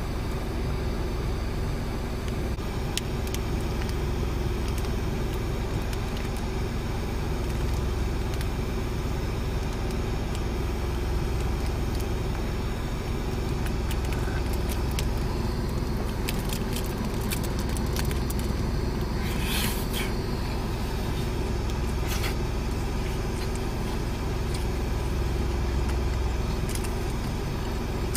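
A kei car's engine idling steadily, heard from inside the cabin. From about the middle it is joined by the crackle and crinkle of a plastic rice-ball wrapper being opened and handled, busiest about two-thirds of the way through.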